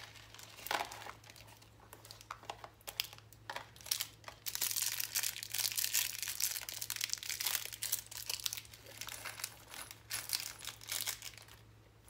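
Small plastic bag of computer-case screws crinkling and rustling as it is handled and opened, densest around the middle, with a few light clicks. A low steady hum runs underneath.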